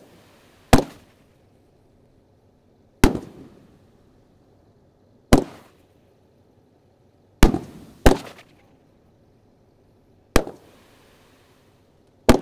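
Large 2.25-inch Dominator Mammoth Peony firework cake firing shot after shot: seven sharp booms about two seconds apart, two of them close together near the middle, each dying away in a short echo.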